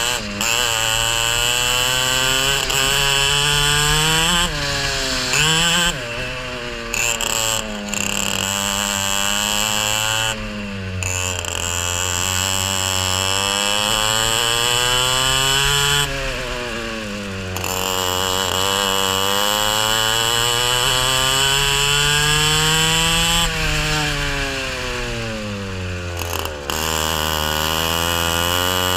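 Racing kart engine heard onboard at full race pace, its pitch climbing steadily along each straight and falling away as the throttle is lifted for the corners, over and over.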